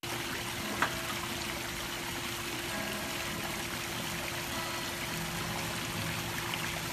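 Steady trickling of running water in a swimming pool, with a faint steady hum underneath and a single sharp click about a second in.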